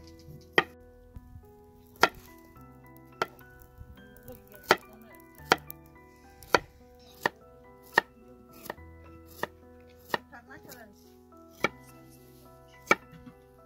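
Kitchen knife slicing carrots on a cutting board: about a dozen sharp knife-on-board strikes at a slow, uneven pace of roughly one a second.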